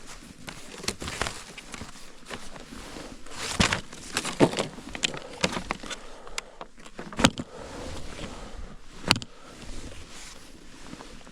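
Snowshoes, MSR Explore, being handled and strapped on: irregular clicks, knocks and rustles from buckles, straps and plastic decking, with a few louder sharp clicks.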